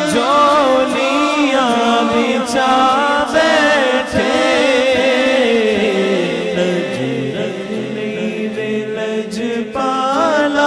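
A man singing a Punjabi naat unaccompanied into a microphone, drawing out long melismatic phrases without clear words. The line slides downward in pitch about halfway through, and a new phrase starts near the end.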